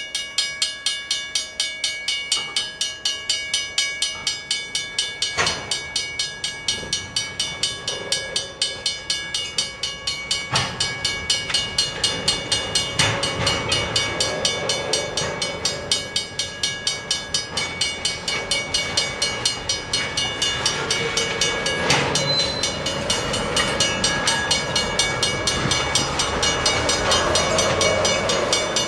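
Freight train of tank cars rolling slowly over a road crossing, with a few sharp clanks from the wheels over the rail joints, the rolling noise growing louder toward the end. Over it a grade-crossing signal bell rings in rapid, even strokes, two to three a second.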